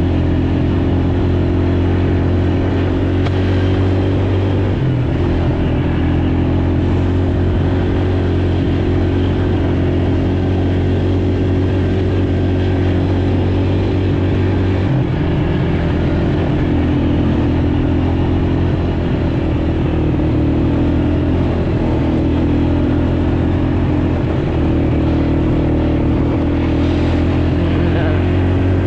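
Small off-road vehicle engine running steadily while riding, from a dirt bike or ATV, with its note shifting slightly about five seconds in and again about fifteen seconds in, over a hiss of riding noise.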